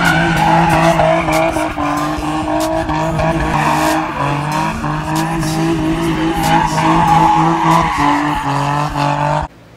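Infiniti G35's 3.5-litre V6 held at high revs while the car drifts in tight circles, tyres squealing over the engine note. The engine dips briefly a couple of times, and everything cuts off abruptly near the end.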